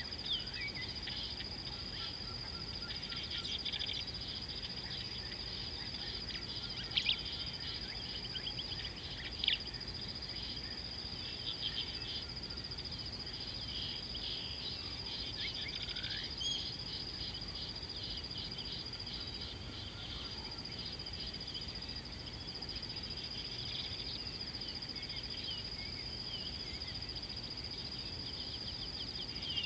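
Outdoor ambience of a steady, high-pitched insect trill, with many short chirps and calls of small birds scattered through it.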